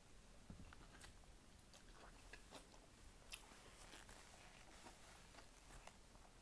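Faint chewing of a mouthful of cheeseburger, with scattered soft wet clicks and smacks of the mouth.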